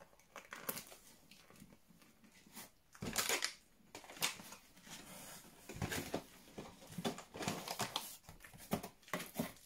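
Paper and packaging rustling and crinkling in irregular bursts as hands rummage through a cardboard parcel.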